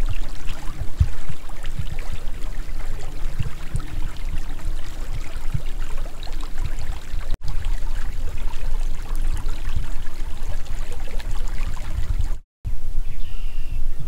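Steady outdoor marsh ambience, mostly a low rumble with scattered faint ticks, that cuts out briefly twice, about seven and twelve seconds in.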